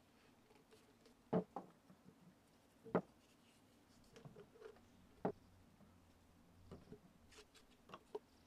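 White PVC elbows and pipe being handled and dry-fitted together, giving a handful of short, light clacks and knocks of plastic against plastic and on a wooden tabletop, spread out with pauses between them.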